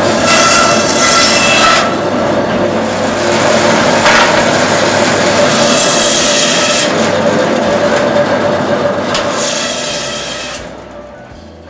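Electric meat bandsaw running and cutting through meat and bone, with three louder rasping passes of the blade, about a second in, around six seconds and around ten seconds. The sound fades away near the end.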